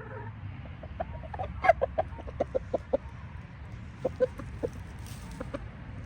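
Chicken clucking: a quick run of short clucks, a few a second, starting about a second in, then a few more clucks a second later.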